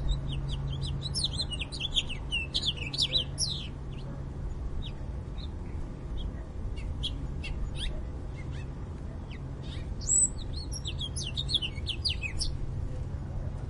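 Small songbirds twittering: two spells of rapid high chirps, one at the start and one about ten seconds in, with scattered single chirps between them, over a steady low hum.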